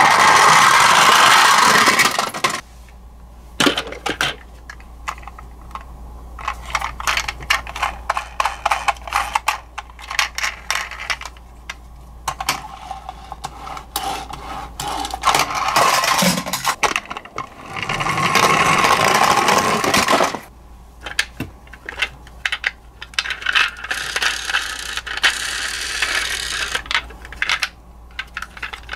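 Plastic toy ambulances rolling fast down a wooden ramp, a rushing rumble of small wheels that comes in a few runs of about two seconds each. In between come the clicks and clatter of the plastic toys being picked up, set down and pushed along a tabletop.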